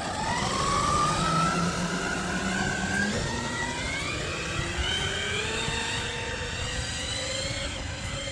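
Eachine EAT02 1/8-scale brushless RC monster truck on a full-throttle speed run: its brushless motor whine climbs steadily in pitch for most of the run as the truck gains speed.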